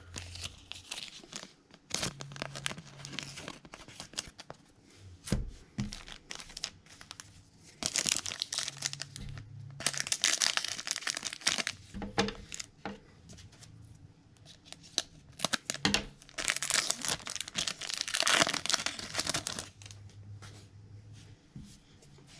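Foil trading card pack wrappers being torn open and crinkled by hand, in a few longer bouts of tearing and rustling, with small clicks and rustles of cards being handled in between.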